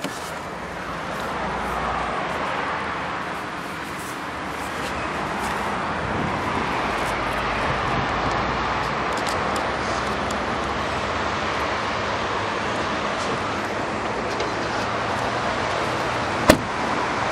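Steady rushing background noise like distant road traffic, swelling slightly now and then, with one sharp click about a second before the end.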